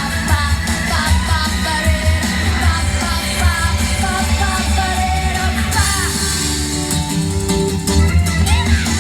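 A pop-rock song with a sung melody over guitar and a steady bass beat. The voice drops out about six seconds in, leaving the instruments playing on.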